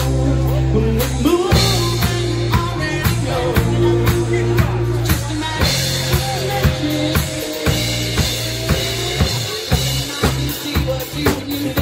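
Live band playing amplified music, with a drum kit keeping a steady beat under sustained electric bass guitar notes.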